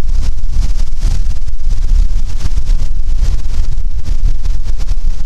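Wind buffeting the microphone: a loud, uneven low rumble that surges in gusts, with a gusty hiss above it.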